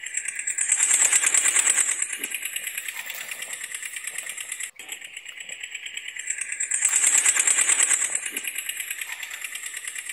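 Toy backhoe loader's electronic sound playing a thin, tinny engine sound with a fast rattling pulse. It swells louder twice, about six seconds apart, and briefly cuts out in between, like a short recording on a loop.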